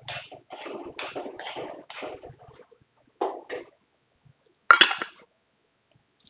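A metal spoon scraping and stirring in an aluminium kadai of simmering curry, in short irregular strokes, with a louder clank about five seconds in.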